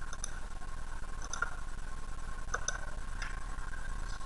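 A few scattered clicks of a computer mouse over a faint steady electrical hum.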